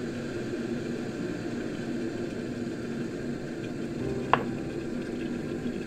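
A steady low hum with one sharp click about four seconds in.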